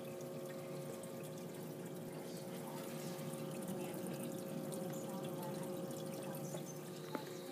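Water circulating in a reef aquarium, trickling and splashing steadily over a steady low hum, with a single click near the end.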